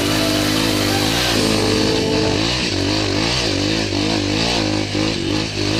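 Dirt bike engine riding a rough trail, its revs rising and falling over and over as the throttle is worked.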